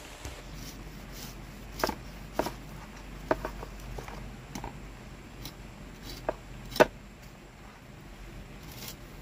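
Large cleaver slicing the rind off a whole pineapple: a run of sharp, irregular cutting strokes, the loudest about two-thirds of the way through.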